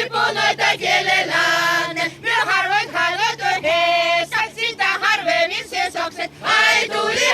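A small folk vocal group singing an old Izhorian folk song together, with several long held notes.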